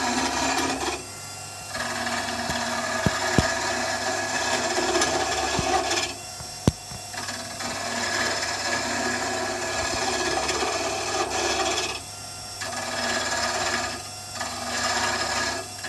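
Mini wood lathe spinning a pen blank while a turning tool cuts it, giving a steady scraping hiss over a low motor hum. The cutting sound drops away briefly about four times, and there are a few sharp clicks.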